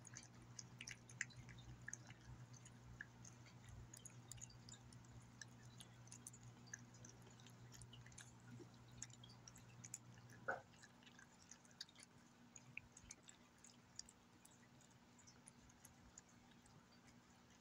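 Cat eating soft wet pâté from a ceramic bowl: faint, quick wet chewing and lip-smacking clicks. A steady low background hum cuts off about ten seconds in, with a brief squeak at that moment.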